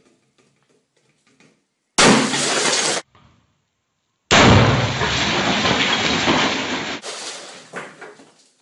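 A pressurised bottle of cola stabbed with a knife and bursting open in loud rushes of spraying fizz: a sudden blast about a second long, then a longer one of about three seconds that fades out.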